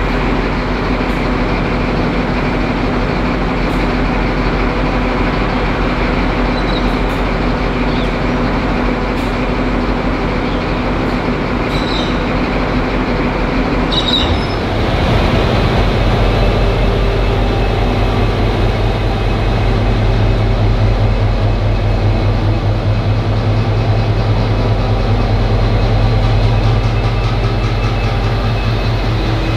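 V/Line diesel locomotive engine running, with a light click every second or two. About halfway through, its note drops into a deeper, pulsing tone and grows louder.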